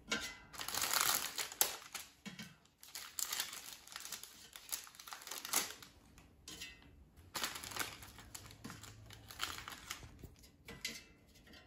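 Thin clear plastic packaging tray crinkling and crackling as frozen mini quiches are pried out of their cups one at a time, with small irregular clicks and taps as they are set into the air fryer basket.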